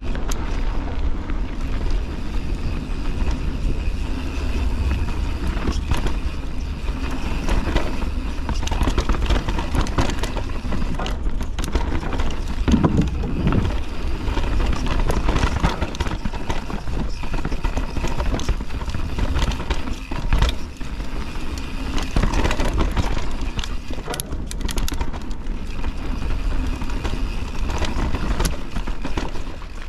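Full-suspension mountain bike riding fast downhill on a dirt trail: wind buffets the camera microphone, the tyres rumble over the ground, and the bike rattles with frequent clicks and knocks over roots and rocks.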